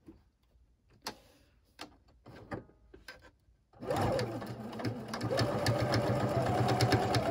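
A few faint clicks and taps, then an electric sewing machine starts stitching about four seconds in and runs steadily across the seam, picking up speed about a second later.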